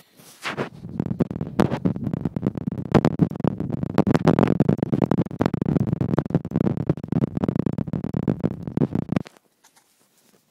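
Handling noise: the phone's microphone is rubbed and covered by fingers or skin, a dense scratching and rustling with a low rumble. It starts about half a second in and cuts off suddenly about nine seconds in.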